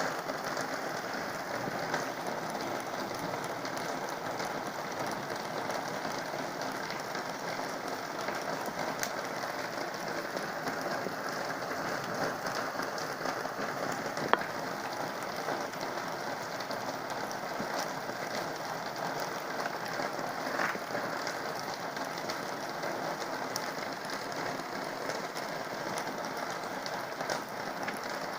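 Heavy rain falling steadily, with scattered drop ticks and one sharper tick about halfway through.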